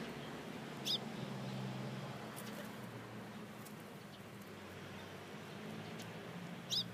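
Two short, high bird chirps, about six seconds apart, over a steady low background hum.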